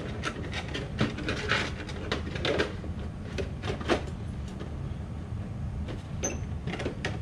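Hands handling the plastic cab body of a Traxxas TRX6 RC truck: scattered light clicks, knocks and rustles over the first few seconds, and a couple more near the end. A steady low hum runs underneath.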